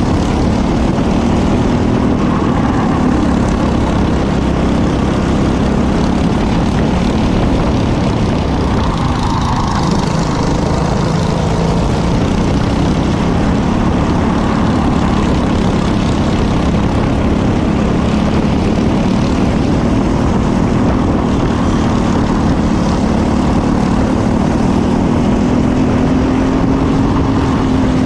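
Briggs & Stratton LO206 four-stroke single-cylinder kart engine running hard under racing load, its pitch rising and falling with the throttle and climbing near the end.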